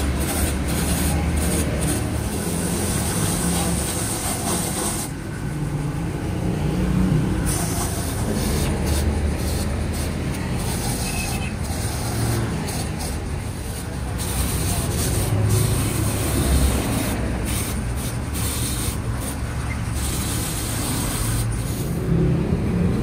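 Angle grinder buffing the rubber inside a tractor tyre's damaged sidewall: a continuous rough grinding noise with a low rumble, changing abruptly a few times.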